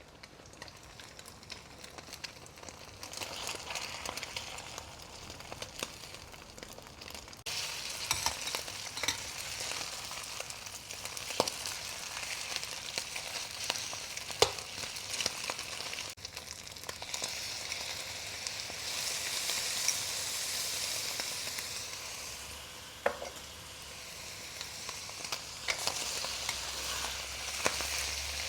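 Cubes of steamed radish cake and beaten duck egg frying in pork lard, a steady sizzle with the sharp clicks and scrapes of a metal spatula stirring and turning them in the pan. The sizzle steps up suddenly about seven seconds in.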